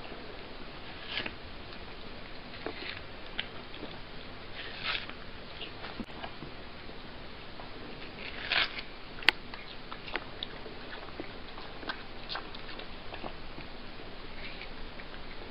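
A cat biting and chewing into a slice of watermelon: short, irregular bites and chews, the loudest a little past the middle.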